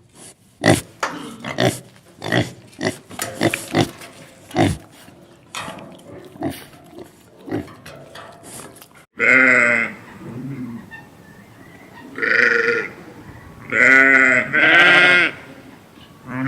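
A pig grunting in a quick run of short grunts, then, after a sudden cut about nine seconds in, a goose honking in four drawn-out calls.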